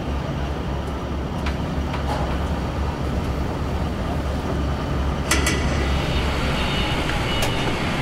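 Steady low rumble of heavy industrial machinery with a noisy hiss over it. About five seconds in, a few sharp metallic clicks and a thin high whine join in.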